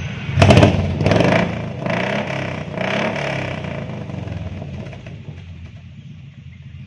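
A vehicle engine revs in a few short blips about a second apart, the first the loudest, then dies away, over a steady low hum.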